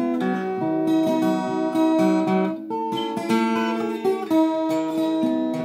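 Acoustic guitar strummed, chords ringing and changing every second or so, with no singing over it.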